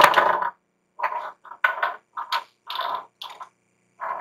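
Small makeup products being put away on a shelf and desk: a run of about eight short clatters and rustles of plastic packaging being handled and set down, the loudest at the start.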